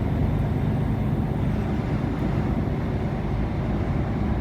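Steady low road and engine rumble heard from inside a lorry cab driving on the motorway.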